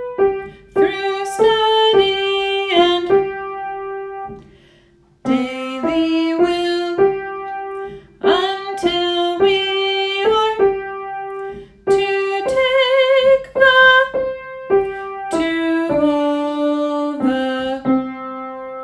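A woman singing a children's hymn over piano accompaniment, with a slight waver on the held notes, breaking off briefly about four seconds in and ending on a long held note.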